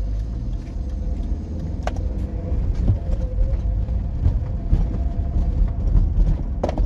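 Road vehicle driving through city streets, heard from inside: steady low engine and road rumble, with a sharp click about two seconds in and another near the end.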